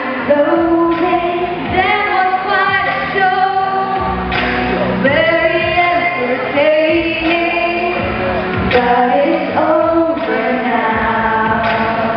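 Two girls singing a pop duet into handheld microphones, sustained melodic lines with vibrato, amplified through the hall's sound system.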